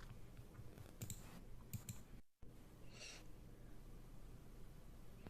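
Near silence: faint room tone with a few soft clicks, dropping to total silence for a moment a little past two seconds in.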